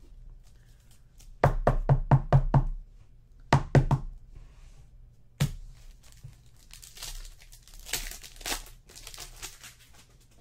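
Trading cards handled on a tabletop: a quick run of about six knocks, then a few more, as the cards meet the table, followed by a crinkling rustle of cards and pack wrappers.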